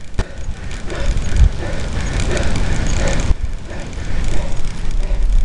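Wind buffeting the microphone of a camera riding along on a bicycle climbing a mountain road, an uneven low rumble. The higher hiss thins out a little past three seconds in.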